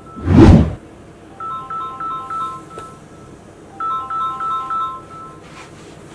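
Alarm ringtone playing a short melody of high beeping notes, repeating about every two and a half seconds. A loud whoosh cuts across it about half a second in.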